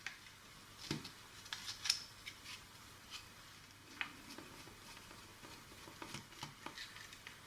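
Faint, scattered clicks and light rubbing as a plastic toy walkie-talkie is handled on the bench, the sharpest click about two seconds in.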